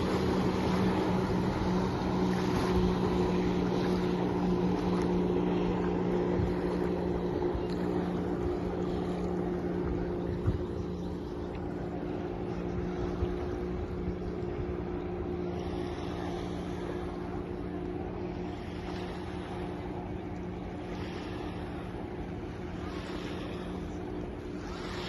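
Jet ski engine running at a steady pitch over rushing water, slowly growing fainter.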